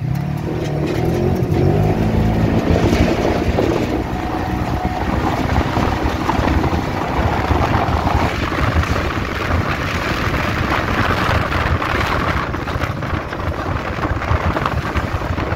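Polaris RZR side-by-side's engine pulling as it accelerates, rising in pitch over the first few seconds, then steady driving noise with wind buffeting the microphone.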